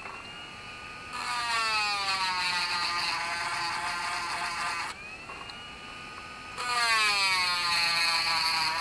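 Dremel rotary tool with a sharpening stone grinding a chainsaw chain tooth damaged by a rock. The motor whines freely, then drops in pitch and gets louder with a grinding hiss as the stone bites the tooth about a second in. It rises back in pitch when lifted around five seconds, then bites again at about seven seconds.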